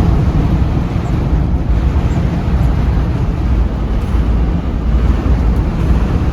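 Steady low rumble of a Fleetwood Expedition motorhome driving at highway speed in very strong winds, heard from inside the cab as a dense mix of road, engine and wind noise.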